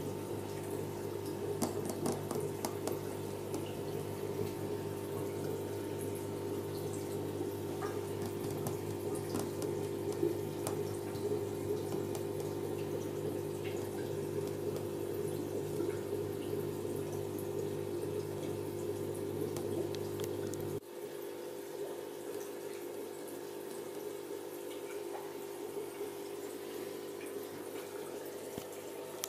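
Aquarium aeration bubbling and water splashing in the tank over a steady low hum. The deepest part of the hum cuts off suddenly about two-thirds of the way through, and the bubbling carries on.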